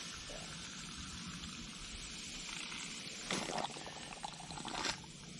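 WD-40 being squeezed from a plastic squeeze bottle into an aerosol can through its open brass Schrader valve stem: a faint pouring sound, with two short, louder bursts of hiss about three and a half and five seconds in.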